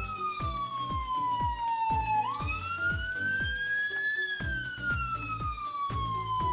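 Toy ambulance's electronic siren wailing, its pitch falling slowly, sweeping back up about two seconds in, then falling again. Background music with a steady beat plays under it.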